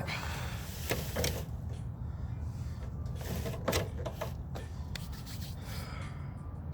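Metal panel parts of a microwave scraping and rubbing as the bottom part is worked loose, with several short sharp clicks, over a steady low hum.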